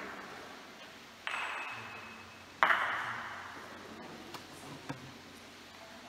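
Two sharp clacks of gateball play, a wooden stick striking a ball and balls knocking together, about a second and a half apart, the second the louder. Each rings on briefly in the hall, and two faint ticks follow near the end.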